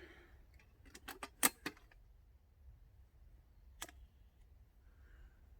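Metal hurricane lantern being handled to light it: a quick run of sharp metallic clicks and clinks about a second in, and one more click a couple of seconds later.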